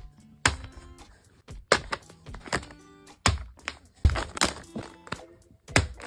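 Background music with several sharp, irregular thuds of fidget toys dropping onto a carpeted floor.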